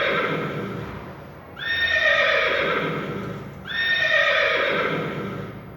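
Horse neighing three times, about two seconds apart, each whinny starting high and falling in pitch as it fades.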